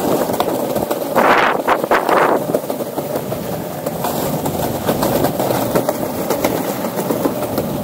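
Skateboard wheels rolling along a planked walkway deck: a steady rumble with frequent light clicks. About a second in, a louder rush of noise swells for a second or so, then the rolling rumble carries on.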